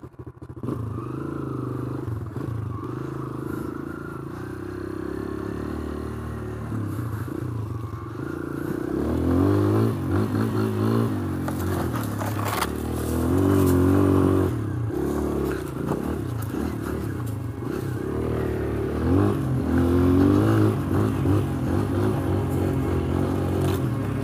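Kawasaki KLX140L dirt bike's four-stroke single-cylinder engine running, steady at first, then revving up and down repeatedly from about eight seconds in as the bike is ridden over a dirt trail.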